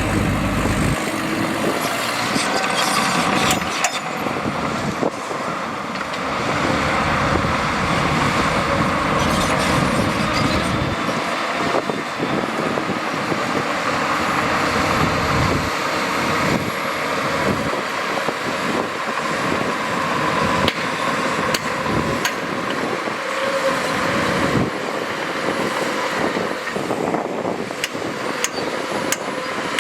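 Heavy diesel earthmoving machinery running steadily under load, with scattered sharp knocks and clanks.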